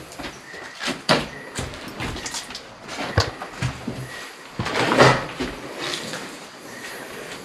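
Irregular knocks, scrapes and rustles from movement and handling, loudest in a noisy burst about five seconds in. A faint high steady tone comes and goes.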